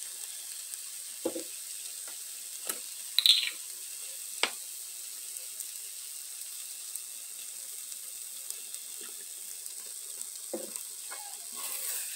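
Blended onion and red pepper paste sizzling in oil in a nonstick frying pan. A steady hiss runs throughout, broken by a few taps and scrapes of a plastic stirring utensil against the pan, the loudest a little over three seconds in. The sizzle grows louder near the end as the paste is stirred.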